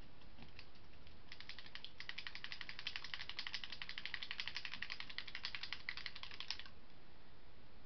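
A container of gold ink being shaken hard, a mixing ball rattling inside it in rapid, even clicks. The shaking starts about a second in and stops shortly before the end. The ink has been sitting a long time and needs mixing.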